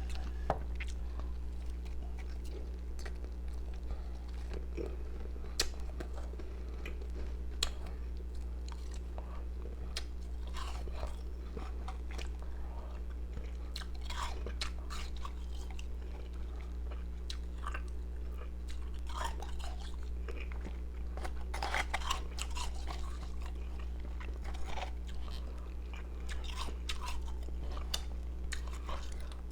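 A person chewing and crunching pieces of powdery ice, with irregular crisp crunches that come thicker in the second half. A steady low hum runs underneath.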